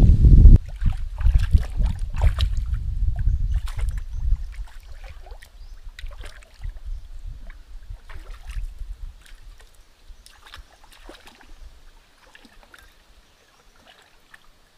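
Hands splashing and sloshing in shallow stream water, with many small splashes and drips. A low wind rumble on the microphone runs under the first few seconds, and the splashing grows fainter toward the end.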